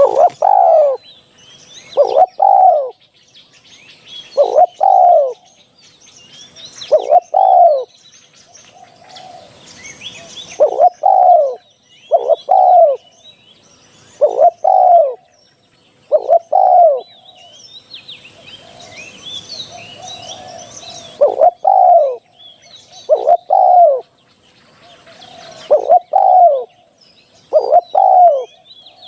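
Spotted dove cooing, a low two-part call repeated about every two seconds. Small birds chirp faintly in the background.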